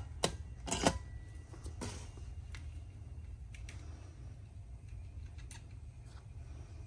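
Soldering iron and wire being handled at a battery terminal: two sharp clicks within the first second, then a few faint ticks over a steady low hum.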